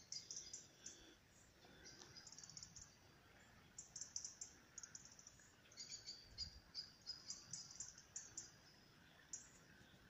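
Small songbirds singing in the pre-dawn chorus: short, high, rapid chirping trills that come again and again, some overlapping, over faint steady background noise. There is a soft low thump about six seconds in.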